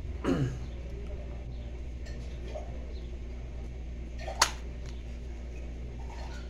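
A phone being fitted to its holder: one sharp click a little past halfway. Under it runs a steady low hum, and a short falling squeal comes near the start.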